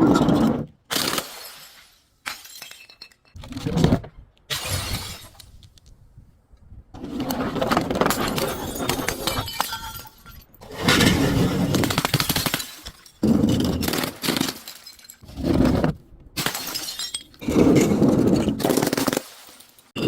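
Glass being smashed and crushed: a series of loud breaking and crunching sounds, some short and sharp, others grinding on for a few seconds, each starting and stopping abruptly.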